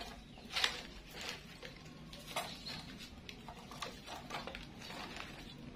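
Wood fire crackling in an open hearth, with irregular clicks and light knocks as burning sticks of firewood are pushed and shifted into the flames to build up the heat.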